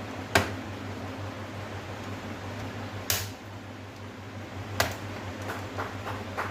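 Sharp clicks and taps of plastic TV backlight parts being pried and handled: three louder clicks about half a second, three seconds and nearly five seconds in, then a quick run of lighter ticks, over a steady low hum.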